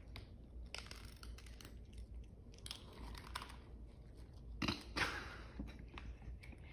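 Two cats crunching dry kibble as they eat from one bowl: irregular soft crunches and chewing, with a louder cluster of crunches about two-thirds of the way in.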